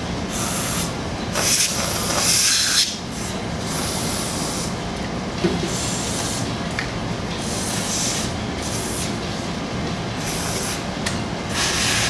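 Aerosol can of PB Blaster rust-penetrating spray hissing in several short bursts, each about half a second to a second and a half long, as it is sprayed onto seized exhaust manifold bolts to loosen them.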